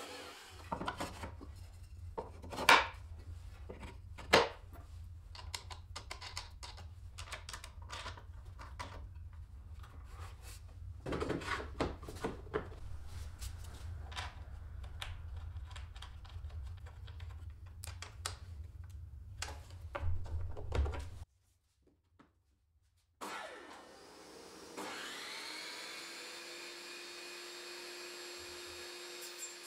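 Wooden pieces knocking and clicking over a low hum, with two sharp loud knocks a few seconds in. After a short gap a table saw motor spins up, its whine rising and then settling into a steady run.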